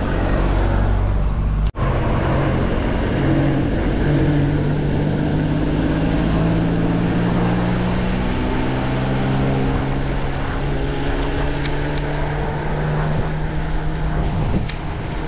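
A motor vehicle's engine runs close by on the road, a steady hum whose pitch slowly shifts, over a steady rush of wind and road noise. The sound drops out briefly a little under two seconds in.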